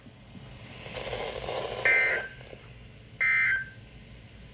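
Two short bursts of the EAS/SAME digital data tone from a NOAA Weather Radio broadcast, each under half a second and a little over a second apart, with a third starting right at the end. This is the end-of-message signal that closes the Required Weekly Test. A faint hiss comes up just before the first burst.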